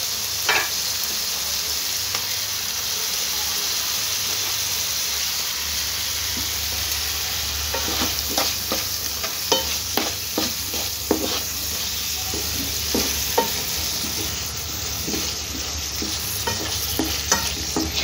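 Onion, capsicum and green chilli sizzling in hot oil and sauce in a pan, a steady hiss throughout. From about eight seconds in, a wooden spatula stirs them, with frequent irregular scrapes and knocks against the pan.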